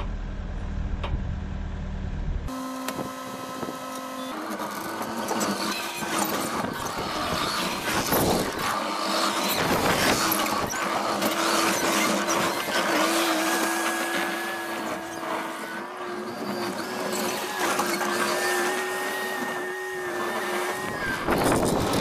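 Case TV450 skid steer running while it works, a steady whine over a rough, noisy clatter. The sound changes abruptly about two and a half seconds in, losing its deep rumble.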